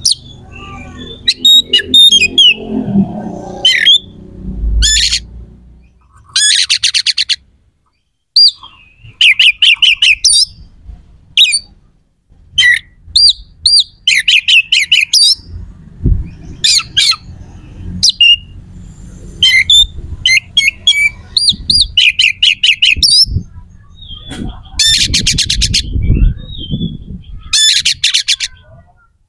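Oriental magpie-robin (kacer) singing loudly, with a varied run of sharp whistled notes and fast rattling bursts of repeated harsh notes, broken by short pauses. A low rumble runs underneath for much of it.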